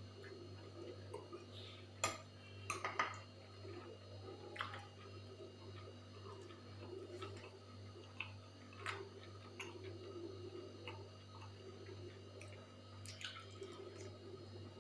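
Someone eating a meal: scattered small clicks and clinks of a plate and dishes, the loudest cluster about two to three seconds in, over a steady low hum.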